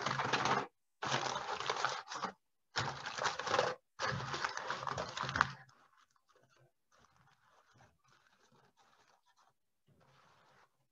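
Aluminium foil boat being crumpled and folded smaller by hand: four loud runs of crinkling over about five seconds, then only faint, soft crinkles.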